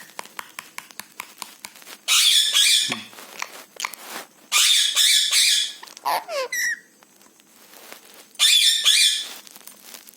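Pet parrot crunching and nibbling food, a rapid run of small clicks, broken by three loud harsh rasping bursts and a short falling whistle.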